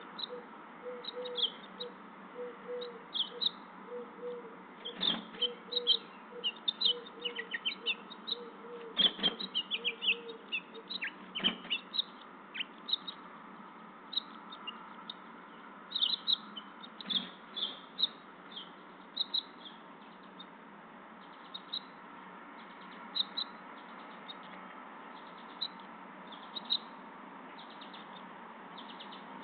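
Small birds, likely the house finch pair at the nest, chirping in quick short bursts all through. A low note repeats about twice a second for the first ten seconds or so, and a few soft knocks sound at the nest.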